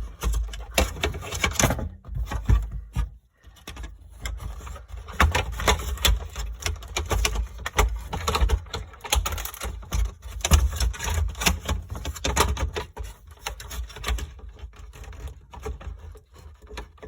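Irregular plastic clicking, tapping and scraping from picking and prying at a broken-off piece of filter neck stuck inside a refrigerator's water filter housing. There is a brief pause about three seconds in, and the clicking grows sparser and quieter near the end.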